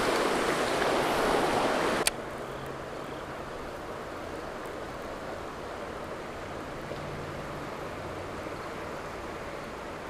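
Rushing water of spillway rapids, cutting off suddenly about two seconds in to a quieter, steady wash of flowing creek water.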